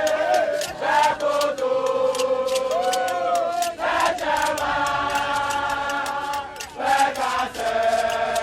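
A group of voices chanting in unison in long held notes that change pitch every second or two, with sharp percussive hits throughout.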